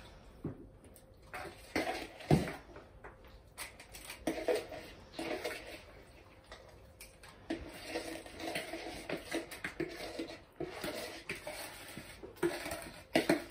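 Spatula scraping chocolate cake batter out of a mixing bowl into a lined cake tin: irregular scrapes and soft knocks against the bowl, the sharpest knock about two seconds in.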